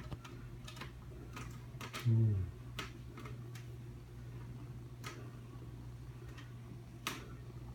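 Irregular light clicks and taps over a steady low hum, with one short, low voiced sound about two seconds in.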